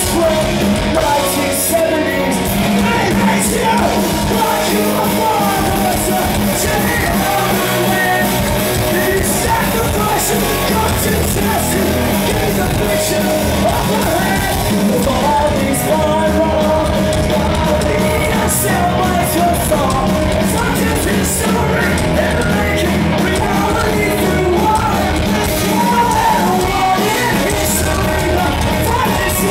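Live rock band playing loud: a singer shouting the vocals over distorted electric guitars, bass and drums, with the echo of a large hall.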